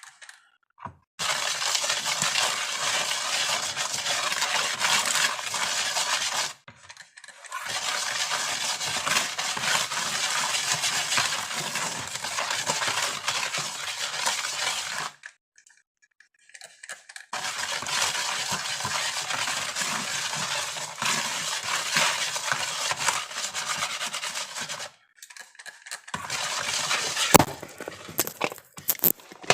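Dry, powdery baking soda and citric acid mix being stirred in a bowl, a utensil scraping and crunching through it in three long stretches with short pauses, then more uneven scraping and one sharp click near the end.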